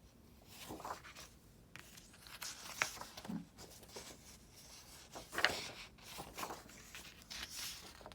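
Paper rustling and sliding as pages and cut-outs are shuffled by hand, with sharper crinkles about three and five and a half seconds in.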